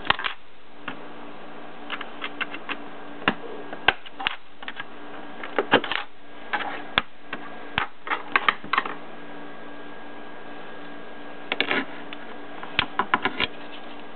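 Flathead screwdriver prying the ties off old model-railroad track rails: irregular sharp metal clicks and snaps in small clusters, with a pause of about two seconds before a last run of clicks.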